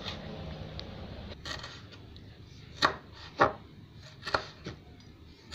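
Kitchen knife slicing ash plantain peel into thin strips on a wooden chopping board: a handful of uneven, sharp knocks as the blade strikes the board.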